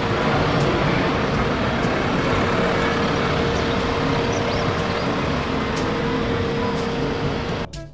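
Single-decker city bus driving along a street and pulling away, its running engine and tyres giving a steady noise with a steady whine over it, amid street traffic. The sound cuts off suddenly near the end.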